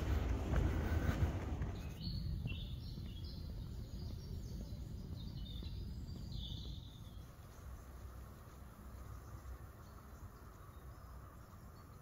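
A loud low rushing rumble for the first two seconds cuts off suddenly. Then a bird gives a quick run of short high chirps for about five seconds, and after that only a faint steady hiss remains.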